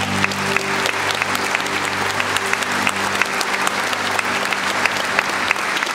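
A large audience applauding in a hall: dense, continuous clapping. Under it a held keyboard chord, the end of the song, fades out over the first three seconds.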